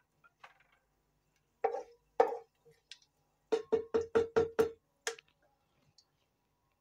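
Hard knocks on a cooking pan: two single knocks, then a quick run of six at about five a second, and one more, each ringing briefly.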